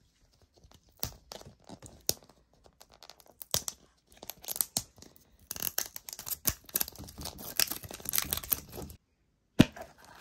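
Plastic wrap being torn and peeled off a plastic surprise capsule ball. Scattered crinkles and clicks give way to a steady crackling tear in the second half. Just before the end comes a sharp click as the ball's two plastic halves come apart.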